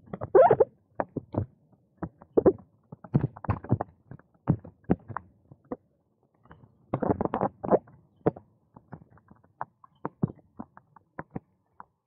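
Irregular knocks and rattles of a bicycle jolting over uneven paving slabs, with denser clusters about half a second in and around seven seconds in.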